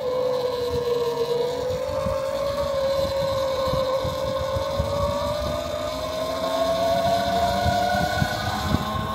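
Electric drive whine of an E-Ride Pro SS e-bike under way: one steady tone that slowly rises in pitch as the bike speeds up, over a low rumble of wind on the microphone.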